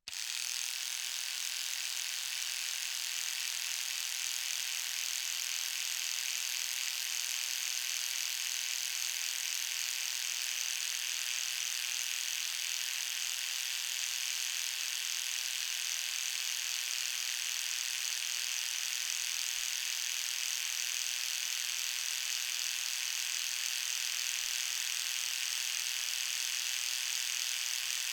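Electric toothbrush switched on right at the start, then running with a steady, even, high-pitched buzz.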